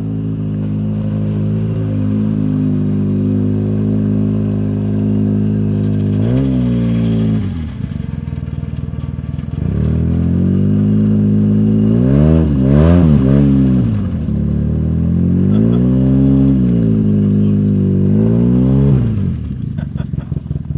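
ATV engine running steadily, then revved again and again, its pitch swinging up and down, as the quad is driven through a mud hole; the revs are quickest and highest in the middle and drop away near the end.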